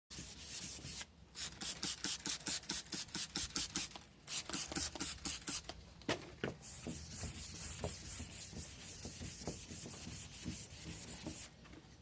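Sandpaper scrubbed by hand across a fiberglass boat hull's oxidized gelcoat, in quick back-and-forth strokes of about four a second. About six seconds in, it turns into a steadier, quieter rubbing.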